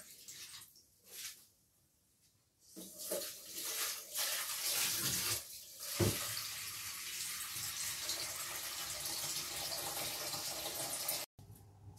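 Kitchen mixer tap running into a stainless-steel sink as things are rinsed under it. Soft handling noises come first, the water starts about three seconds in, a knock sounds about six seconds in, and the flow is shut off abruptly near the end.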